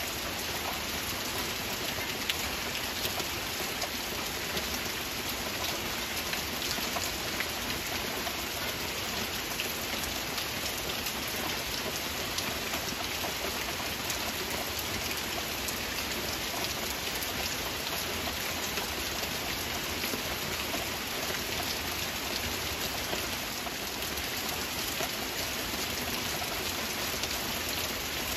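Steady rain falling: an even hiss with the close patter of individual drops, unchanging throughout.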